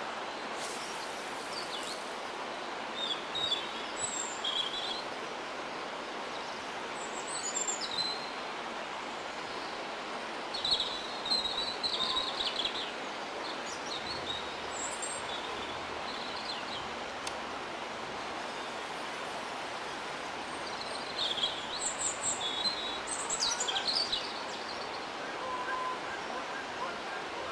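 Small birds chirping: short runs of high calls come a few seconds in, around the middle and again near the end, over a steady rushing background noise.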